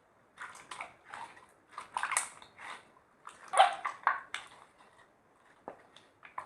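Slime being squished and mixed by hand: a run of short wet squelches and pops, the loudest about three and a half seconds in, then tapering off to a few faint clicks.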